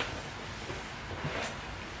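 Light handling of a plastic tray over a plastic basin: a short click at the start and a soft rustle about a second and a half in, with otherwise quiet room tone.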